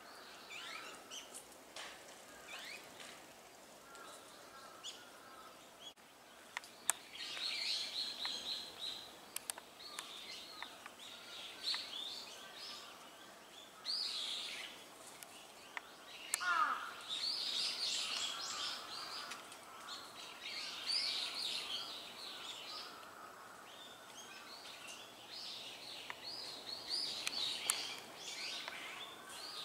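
A flock of azure-winged magpies calling, with repeated calls coming in bursts and several birds at once at times. One lower, falling call comes about halfway through.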